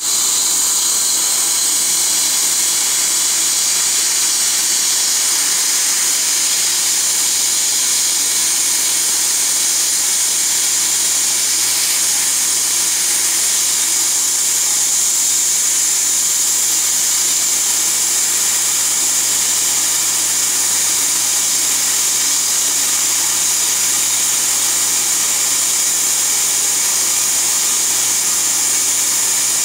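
Dental equipment running with a steady, unbroken high hiss and whir, of the kind made by a dental laser's air-water spray and the suction working together.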